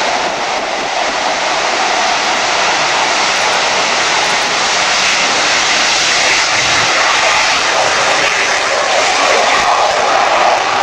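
F/A-18C Hornet's twin F404 jet engines at takeoff power: a steady, loud jet roar as the fighter rolls down the runway and lifts off near the end.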